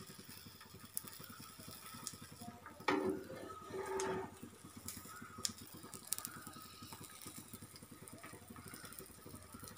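Quiet scraping and tapping of a metal spatula against a nonstick frying pan as a thin egg omelette is lifted and folded over, with a few short clicks and two brief louder knocks about three and four seconds in.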